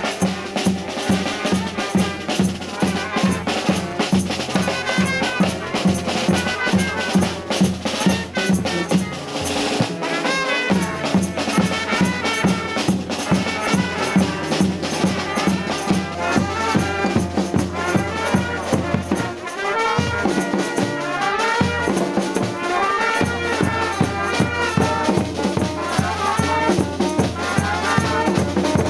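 Street brass band (banda) playing live: trumpets, saxophones and a sousaphone over a steady bass-drum and snare beat. The low bass part drops out briefly twice, about a third and two-thirds of the way through.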